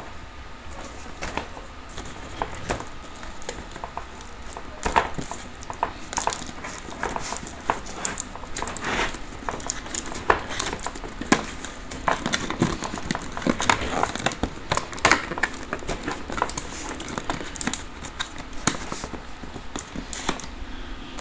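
A shrink-wrapped cardboard headset box being handled and turned over, with irregular crinkles, taps and scrapes of plastic film and cardboard.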